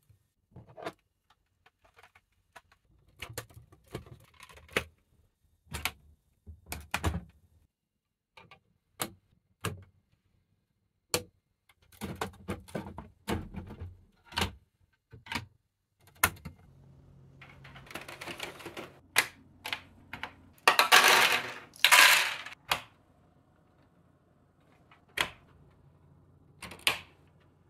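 LEGO Technic plastic parts clicking and snapping together by hand: pins pushed into beams and panels fitted onto a hull, in many separate sharp clicks. A little past the middle comes a longer stretch of louder plastic clatter and rustling.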